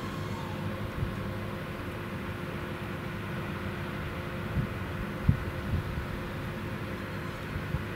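Steady low diesel engine hum as an RA1 railbus draws slowly toward the platform, with a few short low thumps, the loudest about five seconds in.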